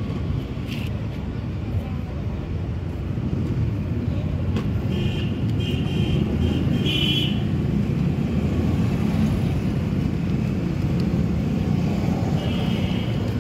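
A steady low engine rumble, with a few short high-pitched beeps about five to seven seconds in and again near the end.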